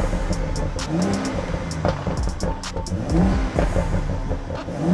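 BMW M135i engine revved from idle several times, heard from inside the cabin: repeated rising blips of revs over a steady idle.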